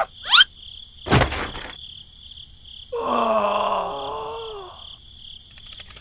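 Steady, evenly pulsing cricket-like chirping in the background, with a quick rising whistle-like sweep at the start, a sharp thump about a second in, and a drawn-out voice-like sound falling in pitch around the middle.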